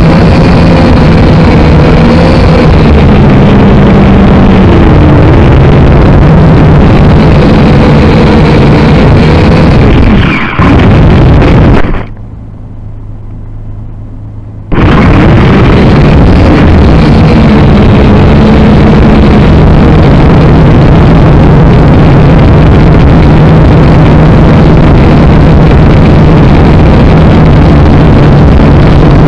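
Syma X5C quadcopter's four small motors and propellers whining loudly right at its own onboard camera's microphone, the whine shifting in pitch as the drone manoeuvres. About ten seconds in the pitch falls away and the motors stop for about three seconds while the drone sits down in the grass, then they spin up again and run on.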